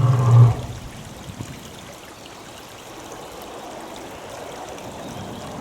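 Steady running-water sound like a trickling stream. A short pitched sound with harmonics, carried over from just before, ends about half a second in.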